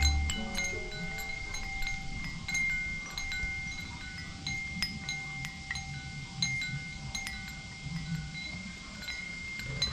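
Homemade wind chime of aluminium tubes cut from old trekking poles, struck irregularly by a stone striker; several pitched tones ring on and overlap, with strikes coming every half second to second or so.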